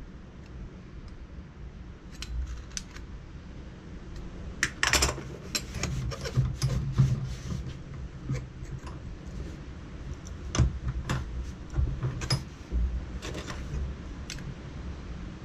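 Irregular light metallic clinks and taps as a small steel exhaust-chamber cone is handled, measured with a vernier caliper and worked on the bench vise to round it. The loudest cluster of clinks comes about five seconds in, with more scattered taps later.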